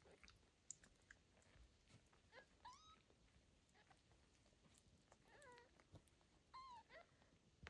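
Newborn kittens mewing faintly: three short high-pitched mews, about two and a half, five and a half and seven seconds in. Scattered small clicks and rustles come as the kittens squirm against the mother cat.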